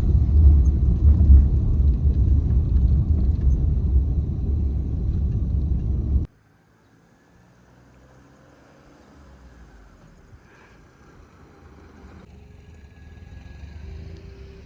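Loud, steady low rumble of a vehicle on the move, cutting off abruptly about six seconds in. After that only a much quieter background with a few faint steady tones remains.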